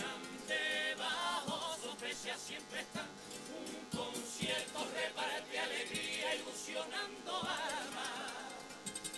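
Carnival comparsa chorus of men singing a pasodoble in harmony, with strummed Spanish guitars accompanying.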